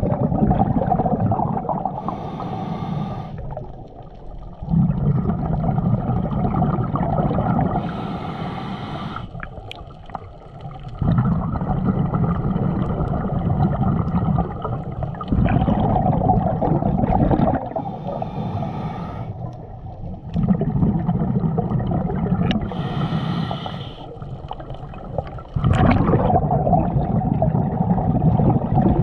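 Scuba diver breathing through a demand regulator, recorded from a head-mounted camera. Four short hissing inhales each give way to a longer, louder bubbling exhale, every few seconds.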